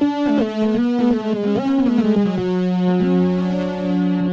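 Retro sci-fi synth built in Ableton's Simpler from a looped sliver of NASA Perseverance rover's Mars wind recording, played as a slow line of held notes that glide into one another with portamento, sometimes two notes together. It has a heavy chorus on it and a slight pitch wobble, and it ends on a long held note.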